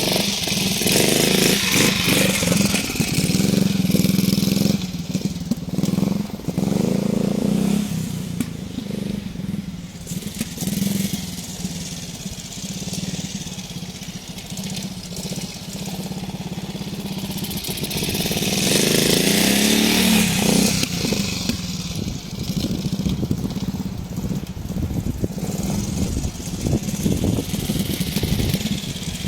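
Trials motorcycle engine running, revving up and easing back. It is loudest in the first several seconds and again about two-thirds of the way through, with quieter running in between.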